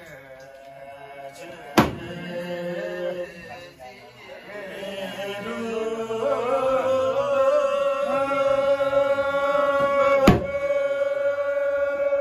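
Voices chanting a slow traditional song in long, held notes that swell louder partway through. Large hand cymbals clash twice, about two seconds in and near the end, each stroke ringing on.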